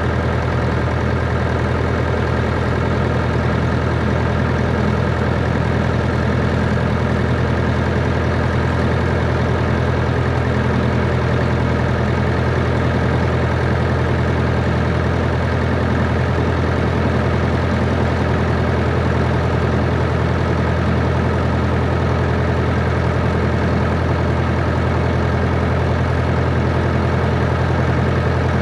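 Steady drone of a Cessna 140's four-cylinder engine and propeller, heard from inside the cabin, with no change in speed.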